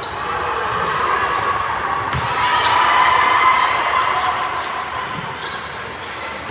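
Gym sound of a girls' basketball game: a ball bouncing on the hardwood court, sharp squeaks and taps from play, and a background of many spectators' voices that swells in the middle and then falls back.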